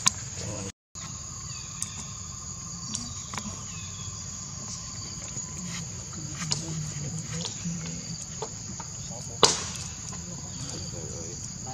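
Steady high-pitched chorus of insects outdoors, with a few sharp clicks scattered through it, the loudest about nine and a half seconds in.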